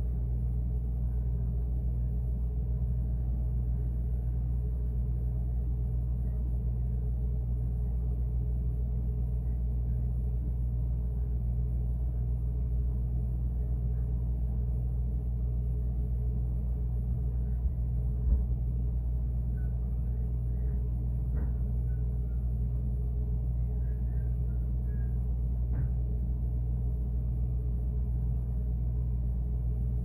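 Refrigerator running with a steady low hum, heard from inside the closed fridge, with one brief soft knock about eighteen seconds in.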